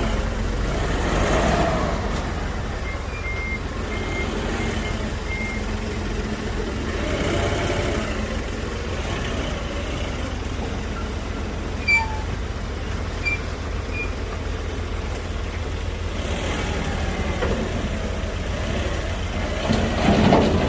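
A large engine running steadily, its sound swelling several times as it works, with a short run of faint high beeps about three to five seconds in and a sharp click about halfway through.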